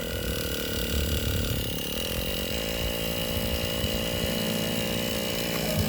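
Toy remote-control car's small electric motor running with a steady high whine.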